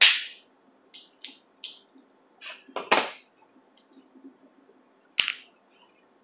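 Snow crab leg shells being cracked and snapped apart by hand. There is a sharp crack at the start, a few small clicks, a crunching pair about three seconds in, and another sharp crack near the end.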